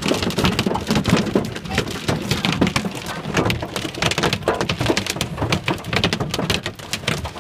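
Heavy rain and hail pelting the car's roof and windshield, heard from inside the car: a dense, steady patter of sharp hits.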